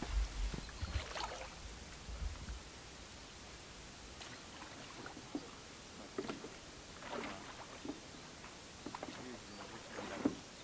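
Faint, irregular small splashes and laps of calm lake water, with a low rumble during the first two seconds or so.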